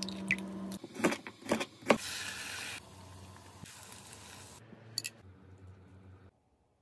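Kitchen sounds in quick succession. First a few sharp clicks as an egg is tapped and cracked over a glass measuring cup, then food sizzling in a frying pan for a couple of seconds, then a quieter stretch with a light click of chopsticks on an aluminium lunch box.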